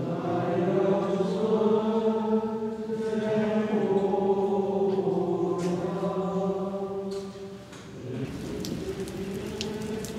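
A church congregation chanting together in unison, voices holding long notes; the chant breaks off about eight seconds in.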